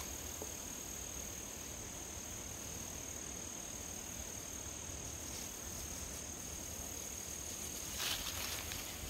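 Insects trilling as one steady, continuous high-pitched chorus. Near the end, footsteps in dry leaves start up.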